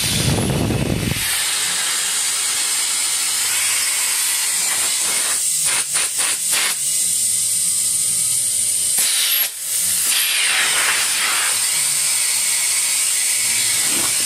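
Compressed air hissing steadily out of a Nathan Airchime M5 train horn as the air tank is bled down, without the horn sounding. The hiss flutters and briefly drops about six and nine and a half seconds in.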